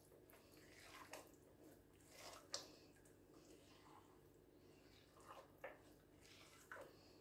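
Faint, wet squishing of a hand kneading a soft butter-and-oil mixture in a glazed earthenware bowl, in irregular squelches with one sharper squelch about two and a half seconds in.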